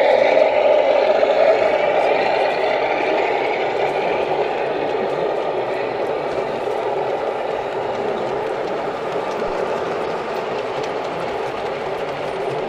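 Model train running past on the layout track: a model diesel locomotive hauling hopper wagons, a steady rumble of wheels on rail that slowly fades as the train moves away.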